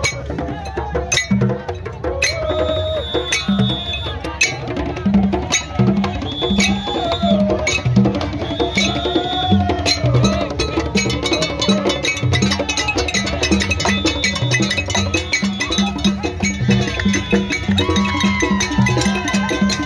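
Traditional drum and percussion music for a Kumpo masquerade: a steady drum beat with sharp wooden clicks and voices over it. Short high shrill notes recur every few seconds.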